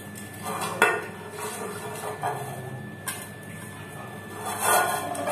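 Pastry brush working oil around a metal cake tin, scraping and knocking against the tin's base and sides, with a sharp knock about a second in and a louder clatter near the end.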